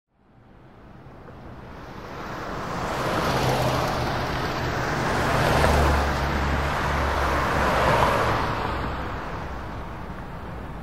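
Street traffic ambience fading in from silence: a steady wash of road noise with a low hum, swelling as cars pass about three times.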